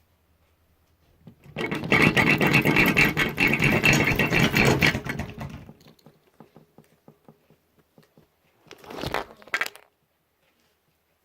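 Loud, dense crackling and scraping close to the microphone for about four seconds, then scattered clicks and a second, shorter burst near the end.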